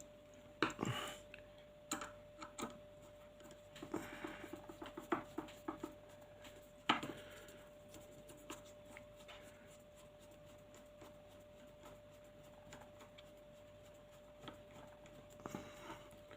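Light scattered clicks and scrapes of a small screwdriver driving a screw into an airsoft hop-up unit, busiest in the first seven seconds and then mostly quiet.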